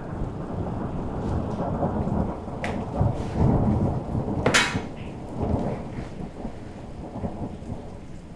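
Thunder rumbling over steady rain, swelling to its loudest about halfway through. At its peak comes one sharp slap, a folder of papers landing on a glass coffee table.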